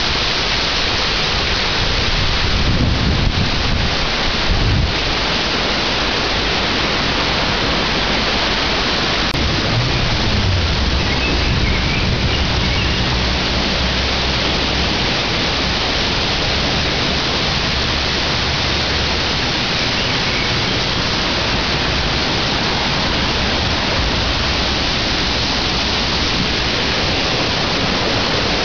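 Creek in flood, its brown floodwater rushing and churning under a footbridge: a loud, steady roar of turbulent water, with a few low rumbles on the microphone a few seconds in and again around ten seconds in.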